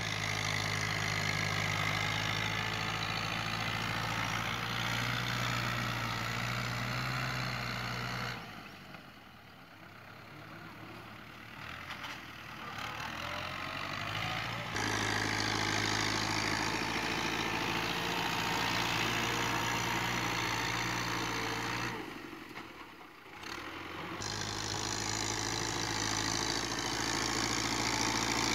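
Ghazi 680 tractor's diesel engine running steadily under load as its front blade pushes soil. Twice the engine sound drops away sharply: for several seconds about a third of the way in, and briefly about two-thirds of the way in.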